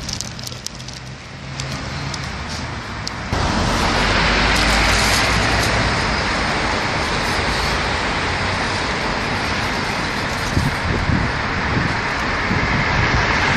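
Street traffic noise: a steady wash of passing cars, which gets abruptly louder about three seconds in.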